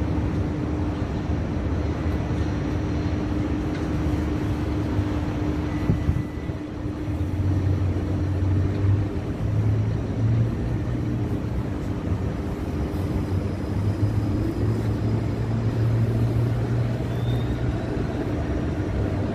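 City street traffic: a steady low rumble of car engines and tyres, with a low engine hum that comes in about seven seconds in.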